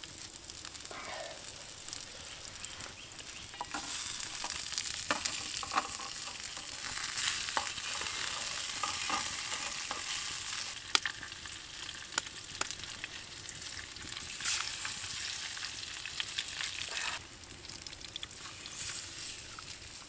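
Food sizzling in a frying pan over a campfire: a steady frying hiss that gets louder about four seconds in and falls back shortly before the end, with a few sharp clicks.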